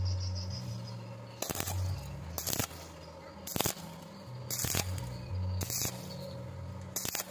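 Background music: low bass notes that change every second or so, with a sharp hit about once a second.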